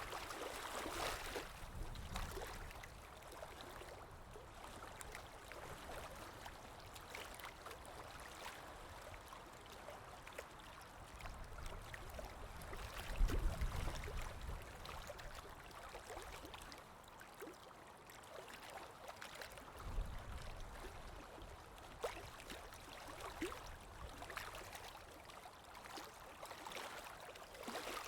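Water trickling and gurgling steadily, with many small drips and splashes. A low rumble comes about halfway through and again briefly later.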